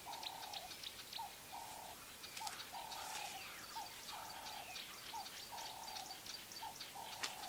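A bird repeating a low two-part call, a short note followed by a longer one, about every second and a half, with faint high chirps from other birds.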